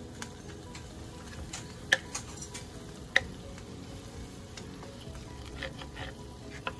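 Chopped onion and red bell pepper sizzling in a frying pan while a wooden spoon stirs and scrapes through them. Two sharp knocks of the spoon against the pan come about two and three seconds in.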